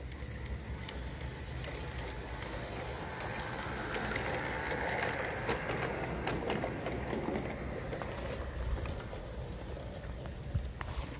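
Garden-scale model train running on brass track: the wheels roll and click over the rail joints as the diesel locomotive and passenger coaches pass close by. The sound swells as the coaches go past in the middle, then fades.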